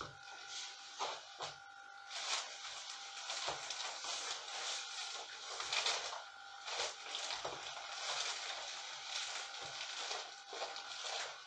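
Clear PVC plastic mac rustling and crinkling in irregular swishes as the wearer moves her arms and turns.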